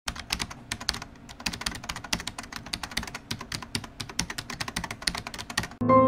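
Fast, uneven typing on a computer keyboard, many key clicks a second. Piano music comes in just before the end and is louder.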